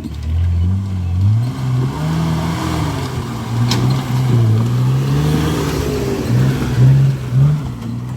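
Off-road vehicle's engine revving up and down unevenly as it is worked over rough ground, with a single sharp knock about three and a half seconds in.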